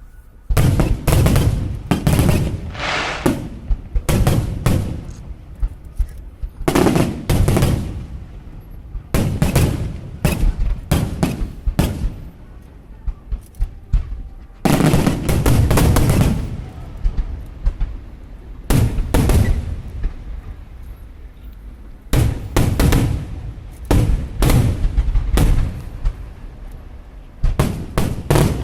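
Aerial fireworks shells bursting in volleys: clusters of rapid loud bangs every few seconds, each with a rumbling echo, separated by short, quieter gaps.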